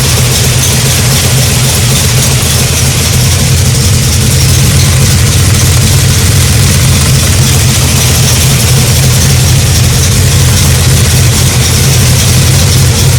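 V8 engine topped with an 8-71 supercharger idling steadily: a loud, even, low rumble.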